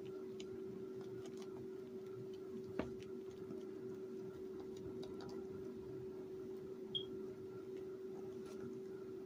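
Faint scattered ticks and scratches of kittens' claws on a quilted puppy pad as they crawl, over a steady low hum. A sharper click comes about three seconds in and a brief high squeak about seven seconds in.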